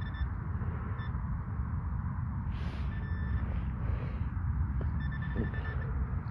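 Handheld metal-detecting pinpointer sounding as it is passed over a clump of soil. A tone cuts off at the start, followed by a short blip, a half-second tone and then a quick run of beeps, signalling a metal target in the clump. Wind rumbles on the microphone underneath.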